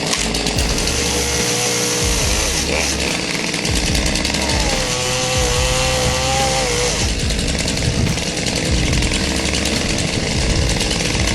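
Chainsaw running at high speed, its pitch rising and falling a few times as it revs.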